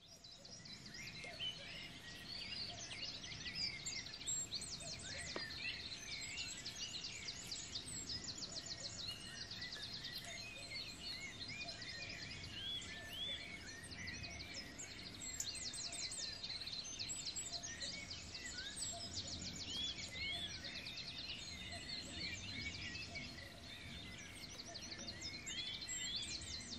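A chorus of many woodland songbirds chirping, whistling and trilling at once, over a faint low background hiss, fading in over the first second.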